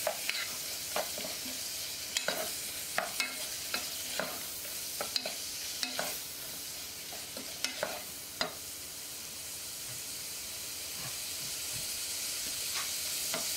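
Cut beef and scallions sizzling in hot oil in a pot, with a wooden spoon scraping and knocking against the pot as they are stir-fried. The knocks stop about eight seconds in, and the steady sizzle carries on.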